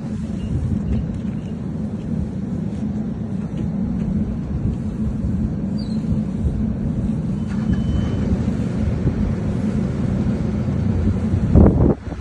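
Steady low drone of running site machinery, such as the curing heater and blower. A brief loud thump comes near the end.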